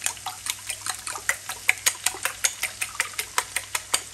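A fork beating eggs in a ceramic bowl, clinking sharply against the bowl about five times a second, over the faint sizzle of onions frying in butter.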